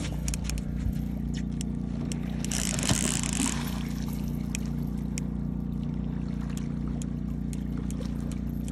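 Suzuki outboard motor running steadily at low speed, a constant low hum. A brief rush of noise about three seconds in and a few light ticks.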